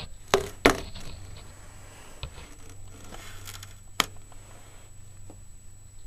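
Handling noise from a handheld camera being moved about: a couple of sharp knocks about a third and two-thirds of a second in, another about four seconds in, and rustling in between. A faint steady low hum lies underneath.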